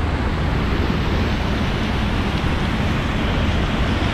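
Steady rushing wind noise on the microphone, with a heavy low rumble and no distinct events.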